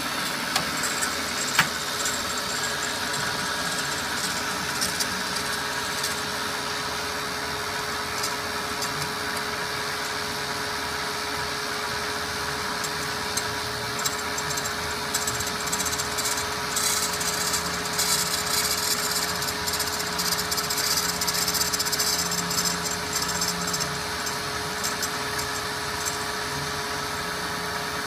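Amada HA-250 horizontal metal-cutting band saw running with its blade in a metal workpiece: a steady hum under the hiss of the blade cutting. The cutting hiss grows louder for several seconds past the middle.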